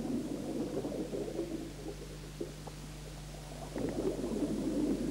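A scuba diver's exhaled bubbles burbling underwater as a low rumble. It eases off about a second and a half in and returns strongly near four seconds, over a steady low hum.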